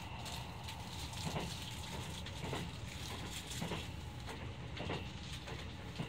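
Cabin noise of a Kintetsu limited express train running, a steady low rumble with wheel clacks about once a second.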